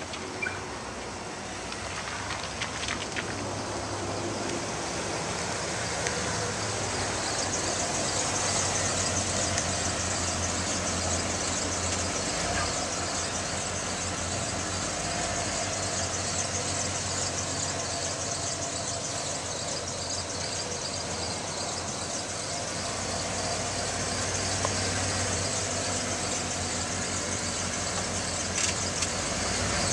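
1993 Ford F-150's 5.0-litre fuel-injected V8 running, growing louder over the first several seconds as the truck comes up close, then idling steadily.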